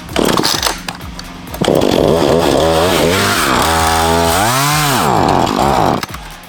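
Gasoline two-stroke chainsaw revved to full throttle about a second and a half in and held for about four seconds, its pitch sagging and climbing again under load as it cuts. The throttle is released near the end and the revs drop.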